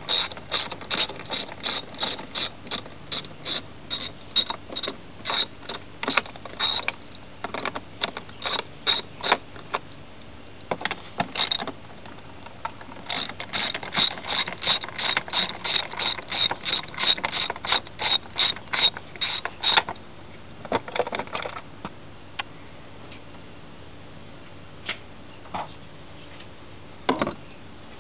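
Hand ratchet wrench clicking in long runs of about three clicks a second as fasteners are worked off. There is a short break in the middle, and after the runs come a few separate clicks and knocks.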